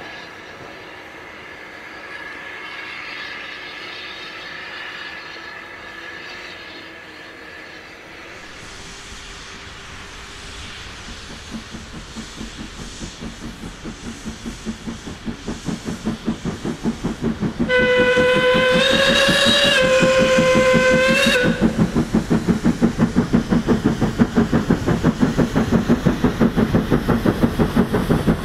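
Steam locomotives working a train uphill: exhaust beats begin about a third of the way in and grow steadily louder. A steam whistle blows for about four seconds near the middle.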